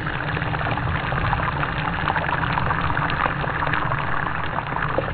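Walleye pieces sizzling in hot butter and olive oil in a frying pan, a steady sizzle full of small crackles and pops.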